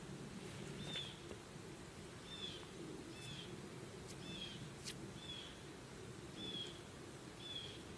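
A bird calling: a short, high chirp repeated about once a second, seven times, over a faint steady low background noise.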